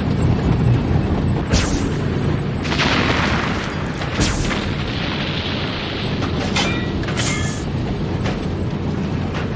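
Battle sound effects: two heavy booms about two and a half seconds apart, each trailing off in a long rumble, then two smaller bangs, over a steady low vehicle rumble.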